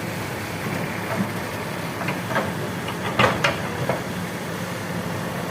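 Diesel engine of the loading machinery running steadily, with a few sharp knocks between about two and four seconds in.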